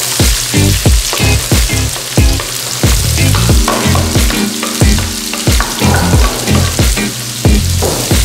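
Chopped onions and garlic sizzling in hot oil in a wok and being stirred with a wooden spatula. The sizzle brightens as the onions go in at the start. Background music with a steady beat plays underneath.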